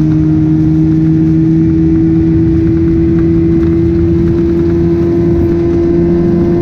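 A boat's outboard motor running steadily at one even pitch while the jon boat is under way.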